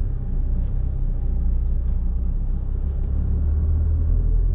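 Low, steady rumble of a four-wheel drive's engine and tyres heard from inside the cabin while driving slowly, growing a little stronger about three seconds in.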